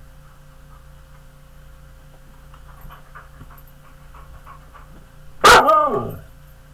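Husky panting faintly, then giving one loud bark about five and a half seconds in that slides down in pitch.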